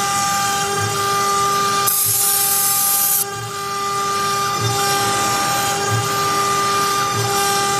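CNC router spindle whining steadily as its small cutter mills raised letters into a wooden board, with a cutting hiss underneath and several held tones that shift in pitch now and then. A harsher, brighter hiss cuts in about two seconds in and lasts just over a second.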